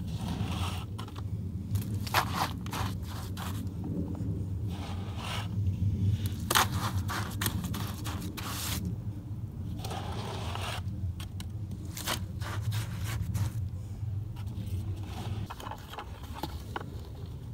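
Irregular scraping and crunching strokes of concrete mix being packed by a gloved hand around the base of a plastic septic tank riser, over a steady low rumble.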